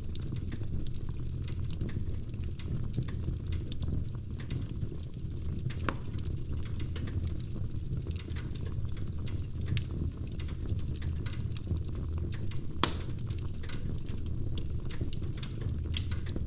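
Wood fire crackling: a steady low rumble of burning logs with frequent small pops and snaps, two sharper pops about 6 and 13 seconds in.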